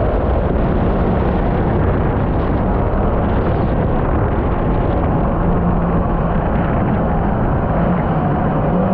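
Mini jet boat with a 1.1-litre Yamaha MR-1 four-stroke jet-ski engine running steadily at speed, under a loud, dense rush of water and wind noise.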